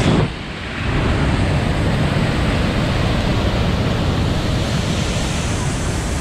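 Steady rushing of a small waterfall on a spring-fed river, with a deep rumble.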